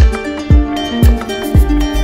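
Background music with a steady beat of about two thumps a second.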